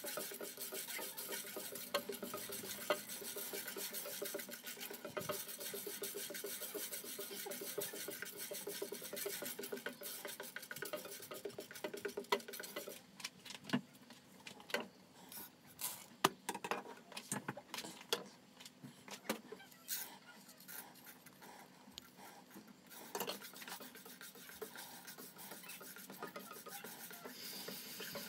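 Dry split dal grains scraping and rattling as a spatula stirs them around a nonstick frying pan while they dry-roast. The steady stirring thins out about halfway through into scattered clicks and taps, then picks up again near the end.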